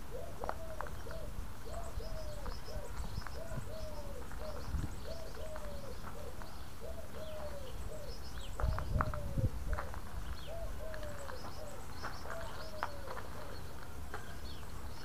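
A dove cooing over and over in short phrases of two or three notes, with small birds chirping faintly in the background. A few knocks come about nine seconds in.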